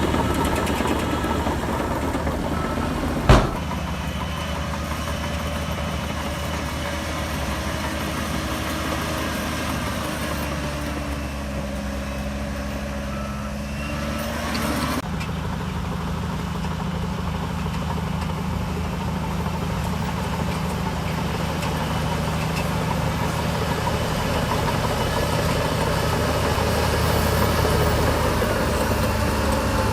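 Heavy diesel engine of earthmoving machinery running steadily at a low, even speed, with one sharp knock about three seconds in and a sudden shift in the engine note about halfway through.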